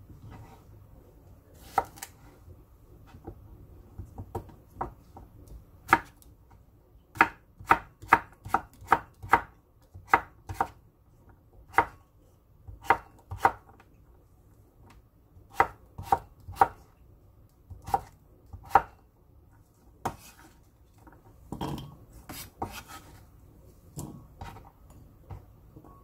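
Kitchen knife slicing a cucumber on a wooden cutting board. The blade knocks sharply on the board in irregular runs of taps, about two or three a second at the busiest.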